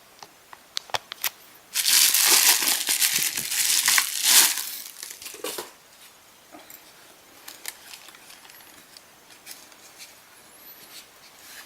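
Packaging crinkling loudly for about three seconds as a new camera body is unwrapped and taken out of its box, with scattered light clicks and taps of handling before and after.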